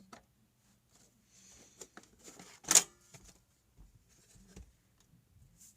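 Hands working inside a desktop PC case: scattered light clicks and rustling of plastic and metal parts, with one sharp knock a little under three seconds in.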